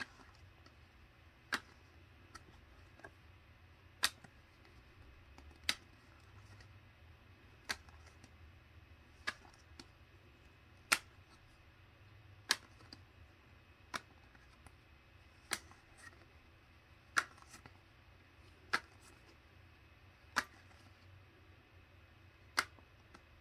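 Cardboard trading cards snapping against one another as they are flipped off the stack one at a time: a sharp click about every second and a half, over a faint steady low hum.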